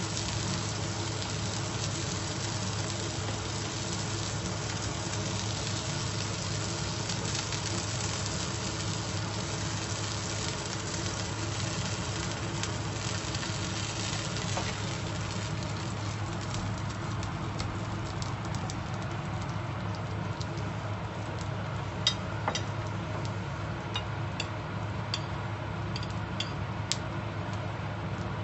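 Beef steak cubes sizzling in a frying pan over a steady low hum, the sizzle thinning out about halfway through. A few sharp clicks near the end.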